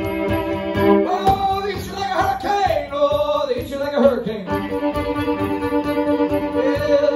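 Fiddle bowed in a driving folk tune, with notes sliding up and down, over a steady foot-stomped beat.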